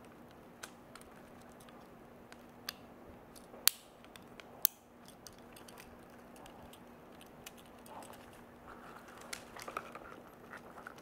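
Small clicks and taps from fingers handling a Tomica die-cast Nissan Skyline toy car. The loudest are two sharp clicks about a second apart near four seconds in, followed near the end by a run of light clicking and scraping.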